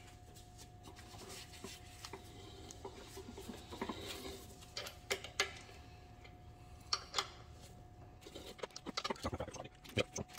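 Ratchet wrench turning a cutter tool that machines the cast aluminium snout of a 5.0 supercharger: faint metallic clicking and scraping, with sharper clicks in pairs and a quick run of clicks near the end. A faint steady tone hums underneath.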